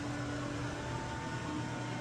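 Small gas engine running steadily under a rush of blowing air, typical of leaf-cleanup power equipment such as a leaf blower.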